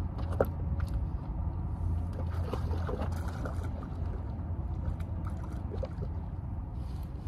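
Wind rumbling on the microphone, with water lapping against shoreline rocks and a few small splashes and ticks scattered through it.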